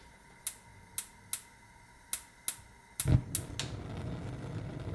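Gas hob burner's electric igniter clicking about eight times, then the gas catches with a low puff about three seconds in, the loudest moment, and the burner keeps burning with a steady low rush of flame.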